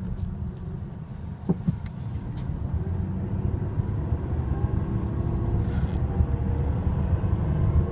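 Ford Ranger's 3.0-litre V6 engine and road noise heard from inside the cab as the pickup pulls away and gathers speed. The engine note rises and grows louder. The engine is running on freshly fitted spark plugs and plug wires.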